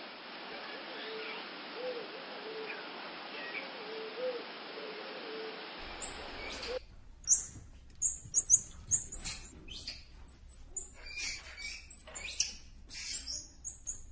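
Pigeons cooing in soft, low, rising-and-falling notes over a steady hiss. About seven seconds in, this gives way to rapid runs of short, high-pitched squirrel monkey chirps, mixed with clicks and rustling.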